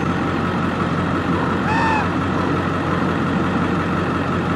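Truck engine idling steadily. About two seconds in, a short squeak-like call rises and falls in pitch above the engine.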